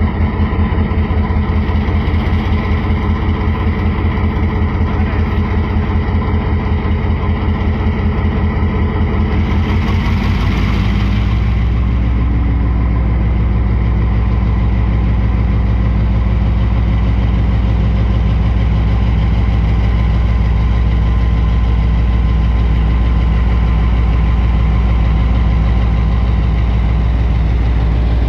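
Diesel-electric locomotive R123 idling with a regular throb. About ten seconds in there is a short hiss, and the engine then settles into a louder, steady low drone as it powers up and pulls the train out.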